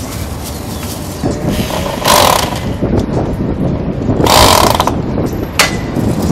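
Corded electric drill driving screws through rubber cones into a wooden board, run in two short bursts about two seconds and four and a half seconds in, with a sharp click shortly before the end.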